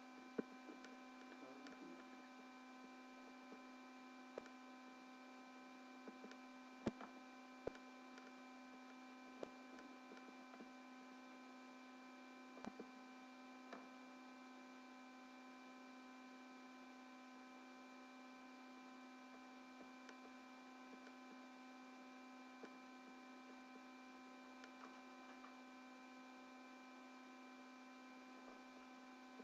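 Near silence: a steady electrical hum with several steady tones in it, and a few small clicks in the first half.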